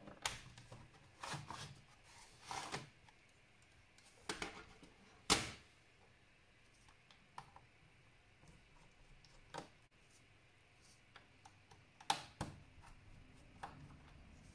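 Scattered plastic clicks and knocks from a laptop being handled and taken apart, with a sharp knock about five seconds in and a few clicks later on.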